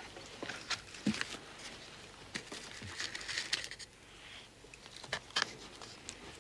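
Soft rustling and handling noises with scattered small clicks. The rustling thickens about three seconds in, and two sharper clicks come a little after five seconds.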